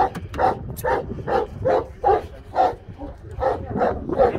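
Central Asian Shepherd dog (Alabai) barking repeatedly in a steady rapid series, about two to three barks a second.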